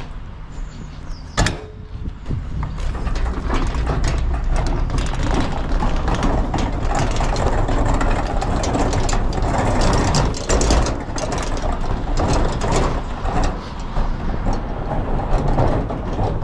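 A garbage truck running hard with a loud mechanical clatter of rattles and clicks over a low engine rumble, after a single sharp knock about a second and a half in.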